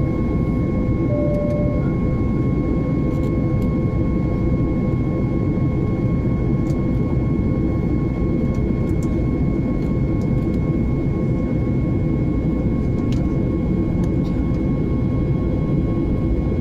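Jet airliner cabin noise in flight: a steady low rumble of engines and rushing air, with a few steady whining tones above it. A brief short tone sounds about a second in.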